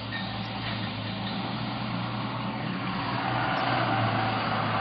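Volvo Penta 225 V8 sterndrive engine of a 1983 Bayliner Capri running steadily with an even hum, a little louder from about three seconds in.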